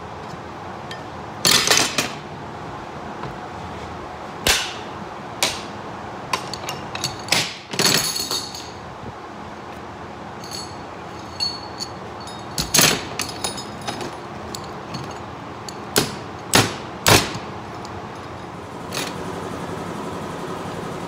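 Steel hammered against a steel floor chain: about a dozen irregular, sharp metal clanks with a short ring, some in quick pairs. Near the end a steady machine hum starts up.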